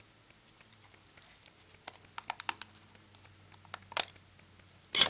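Light clicks and taps of fingers handling a hard clear-plastic trading-card holder: a quick run of them about two seconds in, a few more later, and a louder click near the end.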